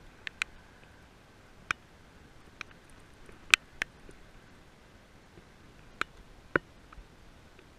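Raindrops striking a GoPro's waterproof housing: scattered sharp ticks, about eight at irregular intervals, the loudest about three and a half seconds in.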